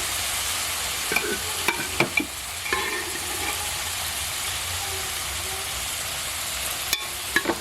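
Cooked beef and onion masala sizzling steadily in a hot pan, with a few sharp clinks and scrapes of a spoon against the pan.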